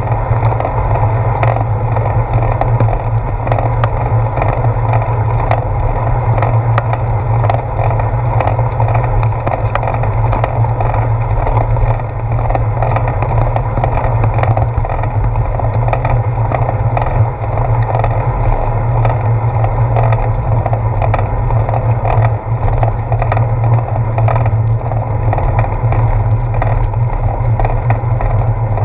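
Bicycle riding along a wet paved path, heard from a handlebar-mounted GoPro: a steady low wind rumble over the rolling tyre noise, with frequent small clicks and rattles from bumps in the path.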